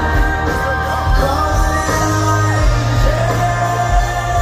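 A live rock band playing over an outdoor amphitheatre's sound system, heard from the lawn: a steady drum beat under guitars and a singer, who holds one long note near the end.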